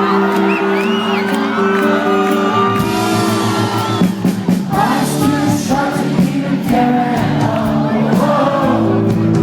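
Live rock band playing the song's opening with sustained chords, a crowd whooping and cheering over it. The low end and drums fill in about three seconds in.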